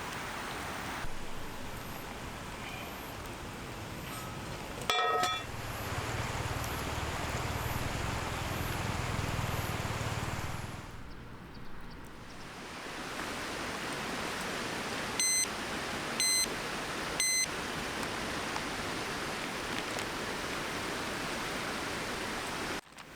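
A steady hissing background with a short metallic clink about five seconds in. About two-thirds of the way through, a small electronic beeper gives three short high beeps, a second apart.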